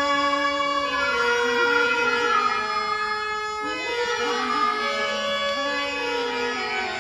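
Background music for a stage drama: a reedy wind-type melody in long held notes that step and bend in pitch over a steady drone.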